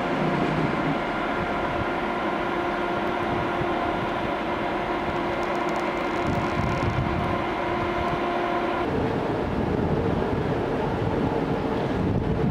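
Electric trains moving through a station, with a steady electric whine of several held tones over running noise; the whine stops about nine seconds in, leaving a broad rushing noise.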